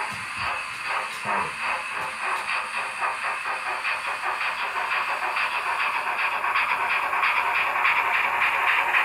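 Märklin model steam locomotive's sound decoder playing steam chuffs over a steady hiss. The chuffs quicken as the locomotive gathers speed, and the sound grows louder as it nears.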